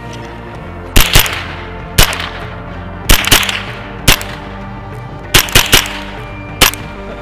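A rifle firing about ten quick shots in uneven groups of one to three, each a sharp crack with a short echo, fast enough to throw a shower of spent shell casings. Background music plays steadily underneath.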